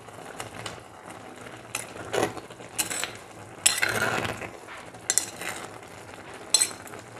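A steel spoon stirring a thick leaf curry in a stone cooking pot (kalchatti): it scrapes and clinks against the stone bottom and sides in several separate strokes, the longest scrape about four seconds in. It is scraping the bottom so the curry doesn't stick.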